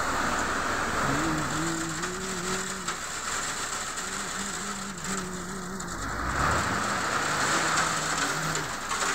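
A vehicle driving on a road: steady road noise with a pitched hum that comes and goes in stretches of about a second and wavers in pitch, and a short low rumble about six seconds in.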